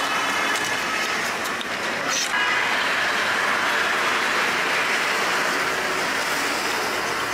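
Steady rushing background noise of a busy street, with one short knock about two seconds in.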